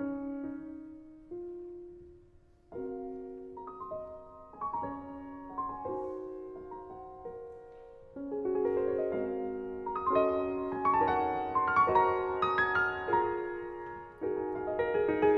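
Background piano music: a slow melody of single struck notes that die away, with a short pause near the start, growing fuller and louder in the second half.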